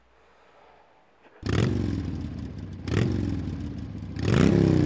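An engine revved in three blips, each surge climbing and dropping in pitch, starting about a second and a half in.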